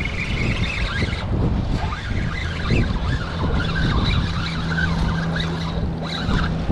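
Wind buffeting the microphone in a steady low rumble, with a steady motor hum joining about halfway through.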